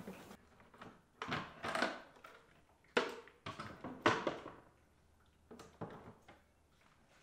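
Hard plastic clunks and scraping rattles, about seven over the span with short quiet gaps between, as a truck's plastic air cleaner housing is pried and worked loose with a screwdriver and lifted off.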